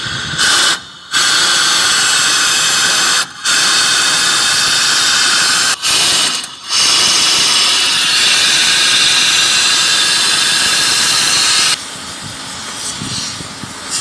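Pneumatic impact wrench running in four bursts, the last about five seconds long, driving in the bolts of a bulldozer's cover plate.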